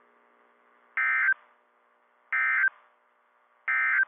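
EAS end-of-message signal on NOAA Weather Radio: three short identical bursts of buzzy SAME digital data tones, about 1.3 s apart, closing the alert. A faint steady hum runs between the bursts.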